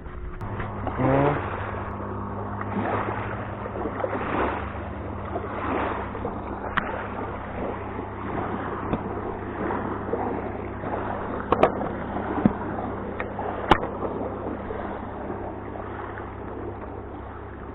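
A motor running steadily, heard as a low even hum, with water splashing and a few sharp clicks.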